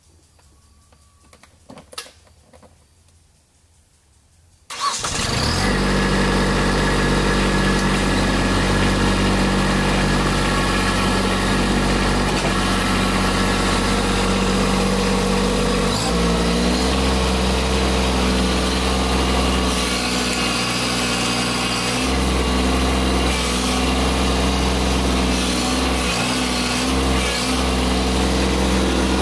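Kubota B2601 compact tractor's three-cylinder diesel engine comes on abruptly about five seconds in after a short click, then runs steadily. Its engine note shifts about sixteen seconds in.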